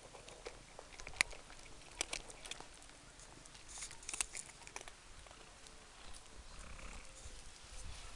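Several cats crunching dry kibble from plastic bowls: a steady scatter of small crunches and clicks, with a few sharper clicks.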